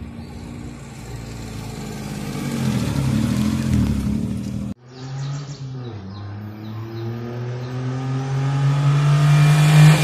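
Maruti 800 car's 800cc engine with a fitted sports silencer, accelerating toward the listener with its note rising and growing louder. The sound cuts off abruptly about five seconds in, then a second approach builds up, loudest near the end.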